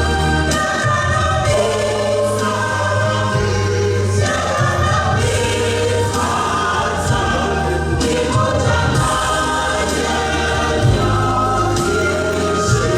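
Choir singing gospel music over a steady bass accompaniment.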